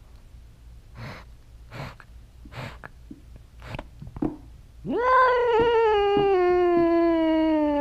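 A cat yowling: one long, drawn-out call starting about five seconds in that rises briefly and then slides slowly lower in pitch. Before it come a few short breathy sniffs close to the microphone.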